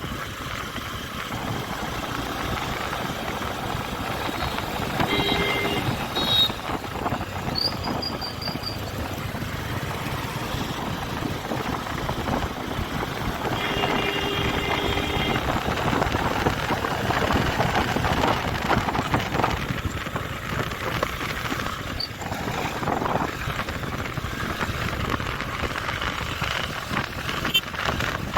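Steady road and traffic noise from a motorcycle being ridden along a road. A vehicle horn sounds briefly about five seconds in, and again for a little longer about fourteen seconds in.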